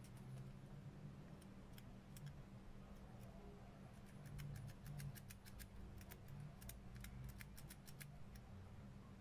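Faint, irregular metallic clicks and ticks from a Hasler Bern railway speedometer's brass clockwork movement as its wheels and lever are worked by hand, coming in quick runs about halfway through, over a low steady hum.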